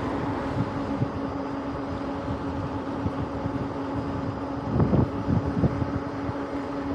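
Riding an electric mountain bike at about 25 mph: wind rushing over the camera microphone with tyre noise from the asphalt and a steady low hum, with a few heavier buffets of wind about five seconds in.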